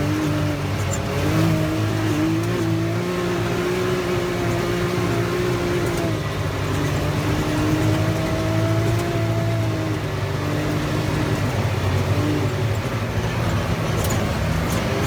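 Side-by-side UTV engine running while driving, with a steady low drone and a whine that wavers up and down in pitch.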